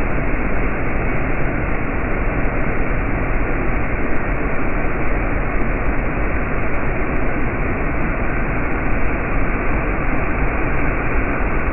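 Rushing water making a loud, steady, unbroken noise.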